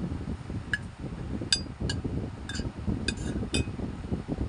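Metal spoon clinking and scraping against a bowl while scooping rice, about seven sharp ringing clinks at uneven intervals, over low chewing and mouth noises from close-miked eating.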